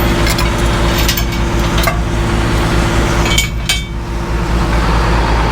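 A heavy machine's engine running steadily, with scattered sharp metallic clanks and clinks of scrap steel being handled, several of them bunched together a little past halfway.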